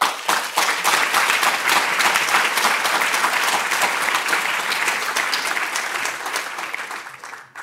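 Audience applauding: dense clapping from many hands that tapers off near the end.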